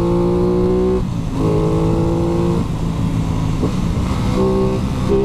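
Aprilia RS660's parallel-twin engine pulling hard as the bike accelerates, its note rising through the gears. It breaks off briefly at about a second in, again past halfway and once more near the end, as it shifts up with the quickshifter.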